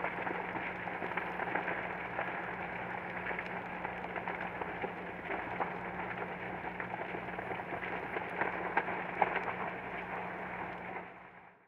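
Wildfire burning: a dense, continuous crackle of burning vegetation with sharp pops, over a steady low hum, fading out near the end.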